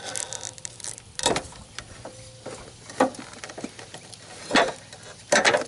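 Separate sharp clicks and knocks of a metal brace and its plastic wiring harness connector being handled and unplugged under the hood, about a second or so apart, with a quick cluster of clacks near the end.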